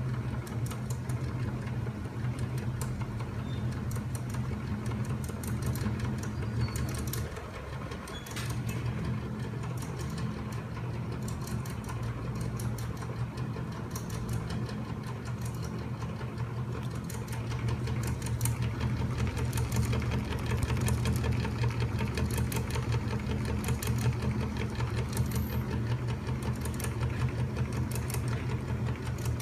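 Home-built crank-and-flywheel magnet-motor machine running steadily: a low hum with fast, continuous mechanical clatter from its rods, bearings and spring-mounted magnet parts. It dips briefly about eight seconds in and runs a little louder in the second half.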